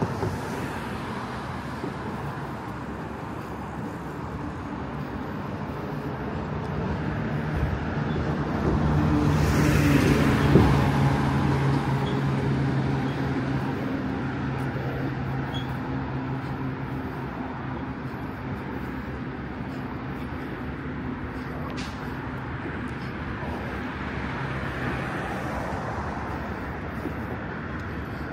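Road traffic: a motor vehicle's engine hum builds and passes close, loudest about ten seconds in, then fades slowly into steady traffic noise.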